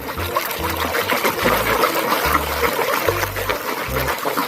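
Running water splashing and trickling as a muddy toy car is rinsed clean, with the deep bass notes of background music underneath.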